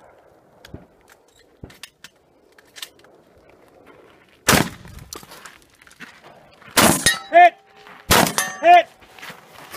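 Gunshots from a competitor's pistol and rifle, three loud reports about a second or two apart, starting about halfway through. After the later two shots, struck steel targets clang and ring, each ring swelling and fading.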